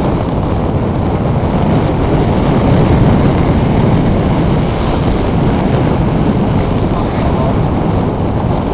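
Wind rushing over the microphone of a camera on a paraglider in flight: a steady, loud roar of airflow noise, heaviest in the low end.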